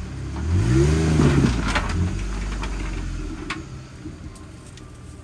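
Off-road Jeep engine revving up and back down about a second in as it works over a rock obstacle, with a scatter of sharp clicks and cracks after it. The engine then eases off and the sound drops.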